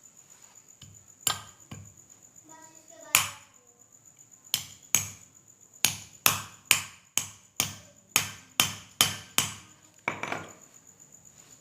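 Hammer blows on a rod packing crumbled candle wax into a ceiling fan's bearing seat, the wax being used to push the jammed ball bearing out without a puller. A few separate blows come first, then a steady run of about two strikes a second.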